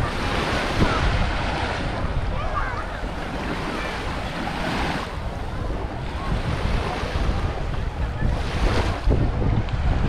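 Small waves washing up on a sandy beach, the surf swelling and easing, with wind buffeting the microphone as a low rumble.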